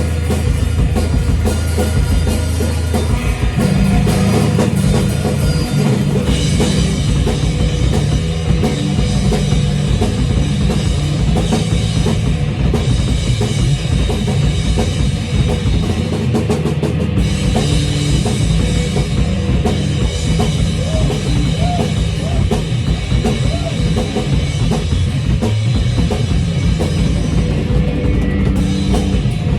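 Instrumental rock music with a steady drum-kit beat and bass.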